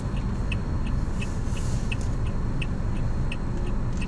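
A car's turn-signal indicator ticking steadily, several ticks a second, while the car waits to turn left. Under it runs the low, steady hum of the car idling in the cabin.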